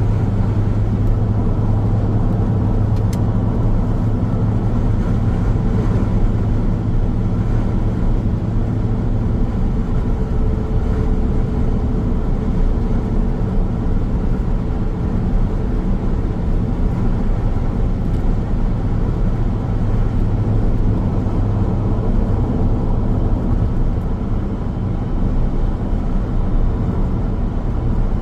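Car driving on a highway: steady tyre and road noise with the engine's low hum, which eases about a third of the way in and comes back about two thirds of the way through.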